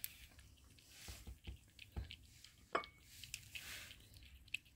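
A cat and a kitten lapping milk from a plate: faint, irregular wet clicks of tongues in the milk.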